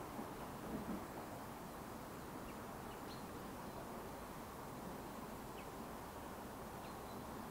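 Quiet outdoor ambience: a steady faint background hiss with a few short, faint high bird chirps scattered through it, and a soft low thump about a second in.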